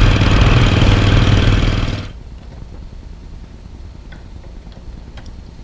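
Harley-Davidson Iron 883's air-cooled V-twin engine running loudly with an even pulsing beat, stopping abruptly about two seconds in; a few faint ticks follow.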